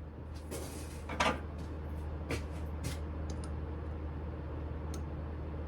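A Smithy lathe running with a steady low hum, with a handful of light metallic clicks and taps scattered through it.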